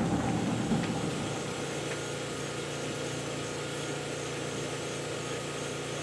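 An engine running steadily: an even, unchanging drone with a low hum.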